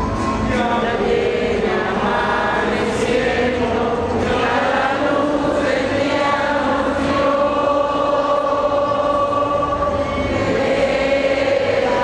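A group of voices singing a hymn together, holding long, drawn-out notes.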